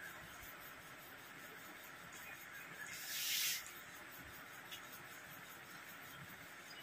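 Quiet sounds of two people eating rice and curry with their hands, faint and low, with one short hiss about three seconds in.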